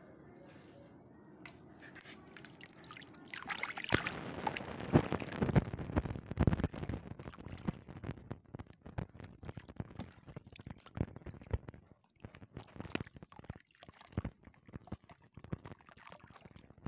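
A dry, dusty clump crumbling and crunching by hand, gritty powder and crumbs pouring and splashing into muddy water. It starts about four seconds in after a faint stretch, densest at first, then thins to scattered crunches.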